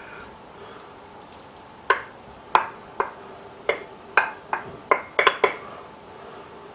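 A kitchen utensil knocking against cookware while cooked vegetables are emptied into an oven dish: about ten sharp, ringing clinks beginning about two seconds in, coming closer together toward the end.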